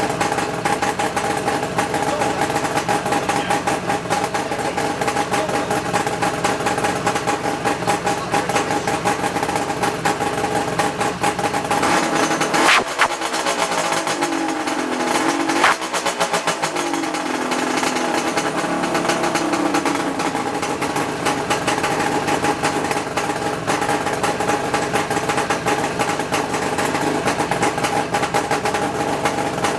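1975 Suzuki GT550's air-cooled two-stroke three-cylinder engine running at a steady idle, freshly restored. Near the middle its note rises and falls for several seconds, with two sharp cracks about three seconds apart.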